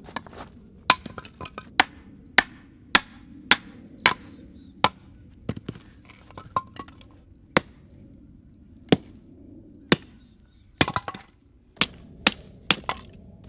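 Hatchet splitting firewood logs into kindling: sharp wooden chopping strikes, about one every half second at first, more spaced out midway, with a quick run of blows near the end.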